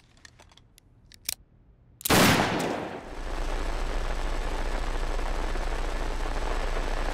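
A few faint clicks, then a single handgun shot about two seconds in, followed by a steady hiss with a low hum underneath.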